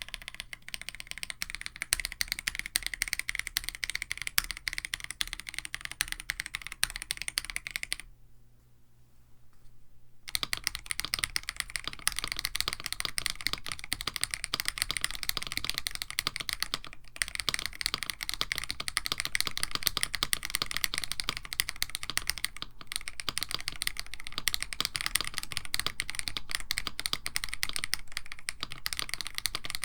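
Typing on a mechanical keyboard: a KBD67 Lite with an FR4 plate, Krytox-lubed Akko Radiant Red linear switches and GMK Striker clone keycaps, in fast steady keystrokes. The typing stops for about two seconds after some eight seconds, then picks up again.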